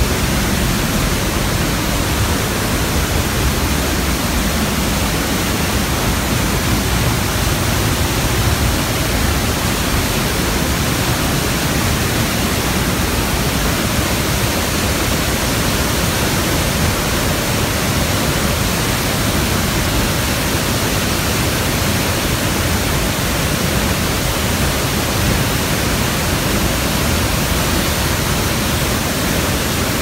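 Palovit Waterfall crashing down close by: a loud, steady rush of falling water.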